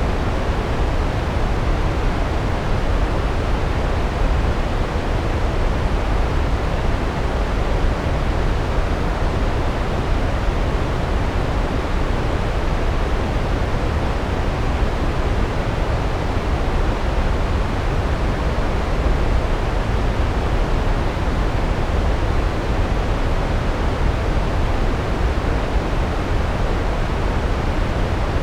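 A large waterfall: a loud, steady rush of falling water with a deep low rumble, unchanging throughout.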